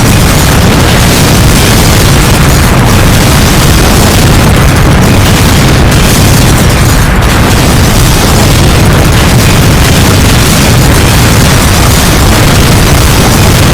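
Loud, unbroken rumbling roar of noise, heaviest in the bass, with no separate blasts standing out: a sustained explosion sound effect.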